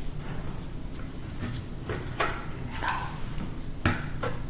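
Scattered light clicks and taps of a screwdriver and small metal parts against a laptop case while it is being taken apart, about six in all, the sharpest near the end.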